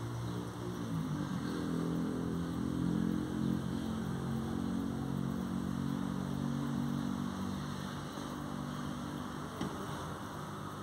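Steady low engine hum, strongest for the first seven seconds or so and then fading, with a single faint click near the end.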